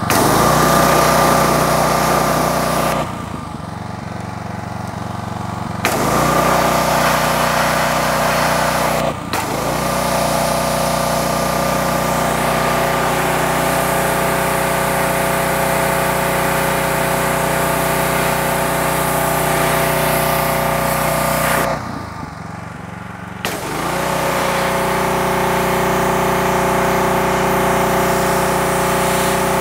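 Pressure washer running steadily with the hiss of its high-pressure spray jet blasting a transmission case. The spray stops and the sound drops about three seconds in for about three seconds, breaks off briefly about nine seconds in, and stops again for about two seconds some twenty-two seconds in before resuming.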